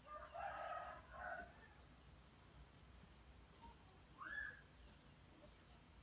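Faint rooster crowing, one crow of about a second and a half in two parts. A shorter rising call follows about four seconds in.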